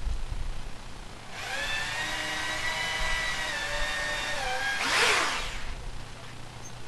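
Power drill running for about three and a half seconds as holes are pre-drilled or screws driven into hard wood, its motor pitch sagging near the end as it loads up. A loud, short scraping burst follows about five seconds in.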